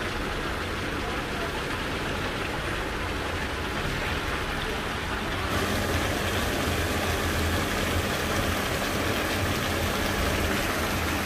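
Large pot of Kabuli pulao rice steaming and bubbling over a fire as the last of its water cooks off: a steady hiss over a low rumble, a little louder about halfway through.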